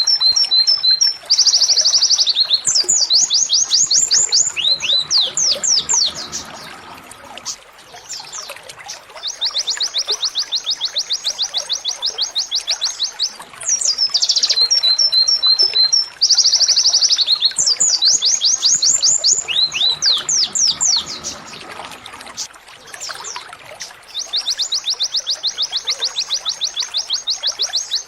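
Domestic canary singing in the 'tembakan' style: long, very fast high-pitched trills alternating with runs of rapid chips, the same sequence of phrases coming round again about every fifteen seconds.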